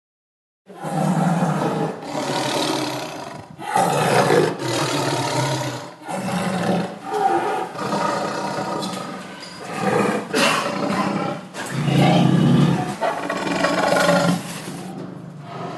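Tigers roaring and growling, one loud roar after another with barely a pause, starting suddenly after a moment of silence.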